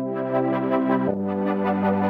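Background music: sustained electronic keyboard chords that change about a second in, over a fast, even ticking beat.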